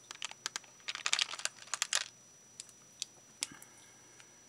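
Beads clicking and rattling against each other and the sides of a plastic storage box as a hand sorts through them: a dense run of clicks over the first two seconds, then a few single clicks.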